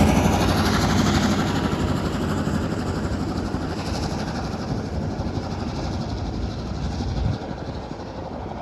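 NSWGR 3526, a 35 class 4-6-0 steam locomotive, working hard under load with rapid exhaust beats, fading steadily as the train draws away, with a sudden drop in level about seven seconds in.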